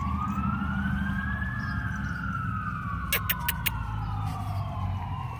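A siren wailing, its pitch slowly rising and falling, over a low rumble. Four quick clicks come about three seconds in.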